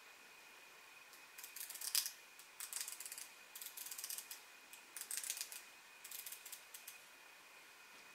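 Aperture ring of a 1960s Carl Zeiss Tessar 50mm f/2.8 lens being turned by hand, ticking softly in about five short runs of clicks roughly a second apart. With the lens loosened a little on its M42 adapter, the aperture now turns and adjusts.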